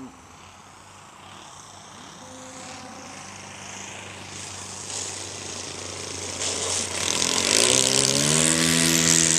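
Engine of a radio-controlled model biplane, faint at first and growing steadily louder as the plane comes in low and rolls along the grass. About seven and a half seconds in it is throttled up: the pitch rises quickly and settles into a loud, steady high run as the plane powers up to take off again.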